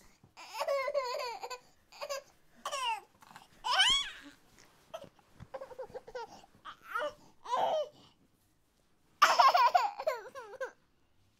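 A kitten crying in a string of high, wavering mews, the longest and loudest about nine seconds in.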